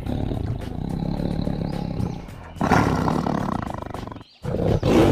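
Tiger roaring: three long, deep, pulsing roars. The first trails off about two seconds in, the second follows at once, and the third begins near the end.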